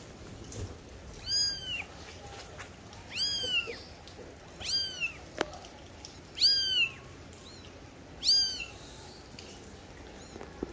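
Persian kitten mewing repeatedly: five high-pitched mews, each rising then falling in pitch, coming about every one and a half to two seconds.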